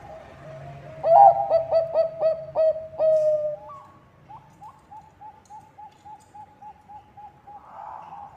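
Zebra dove (Bangkok-type perkutut) singing: soft coos, then about a second in a loud run of quick staccato coos ending in a longer held note. A fainter, slightly higher run of rapid coos follows.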